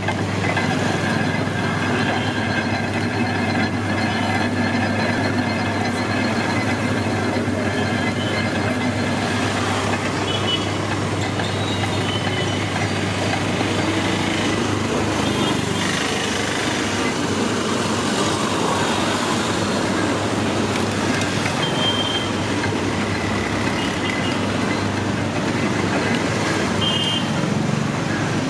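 Sugarcane juice crushing machine running steadily, its gears and rollers turning, with street traffic noise mixed in. A low hum holds steady for about the first half, then fades back.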